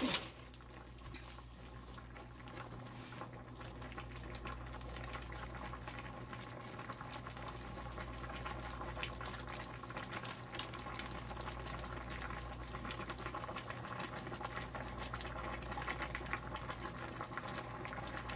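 Seafood boil sauce bubbling and simmering in a pan on the stove, with a dense, steady crackle of small bubbles. It grows gradually louder over the first several seconds as it comes up to the boil, over a low steady hum.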